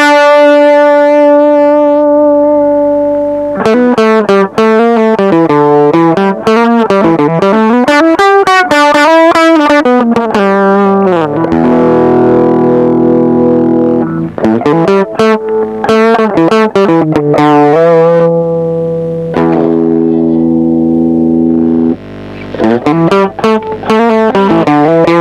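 Electric guitar played through a TC Electronic HyperGravity mini compressor pedal. A held chord opens, followed by quick single-note runs, then ringing chords and more runs. The compressor gives each note a clear attack and the held notes a long, even sustain.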